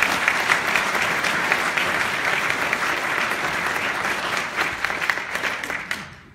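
Audience applauding: dense clapping from many hands, dying away about six seconds in.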